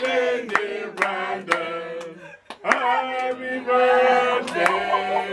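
A group of people singing together in long held notes, clapping along about twice a second, with a short break between phrases about halfway through.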